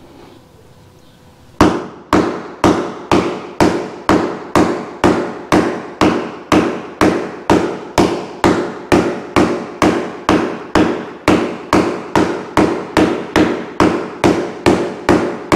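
A heavy hammer pounding an offcut of floor panel, sharp evenly spaced blows at about two a second starting about a second and a half in. It is an impact test of how well the panel resists dents.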